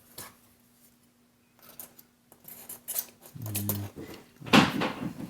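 Small metal tools clinking and scraping on a desk, then a sudden loud clatter about four and a half seconds in: something dropped elsewhere in the house. A faint steady hum runs underneath.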